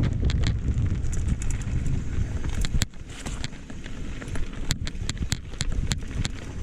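Wind buffeting the microphone with a steady rumble that eases off about three seconds in, with many scattered sharp clicks or taps.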